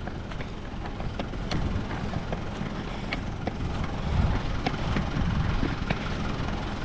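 Vehicle engine running hard as the vehicle tries to pull out of mud it is stuck in, swelling louder about four seconds in, with scattered sharp ticks.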